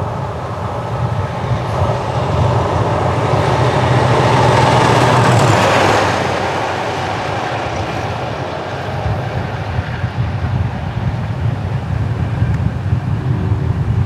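Class 37 diesel locomotive passing at speed, its English Electric V12 engine building to a loud peak about five seconds in and then fading. A high whine drops in pitch as it goes by.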